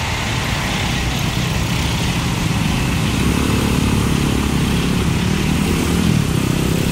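Many small motorcycles and scooters idling, then pulling away together, their engines swelling and revving about halfway through.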